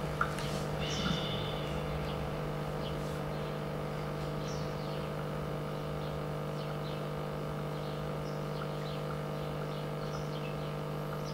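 Quiet room tone with a steady electrical hum, and faint scattered ticks and chirps over it; a few small knocks in the first second.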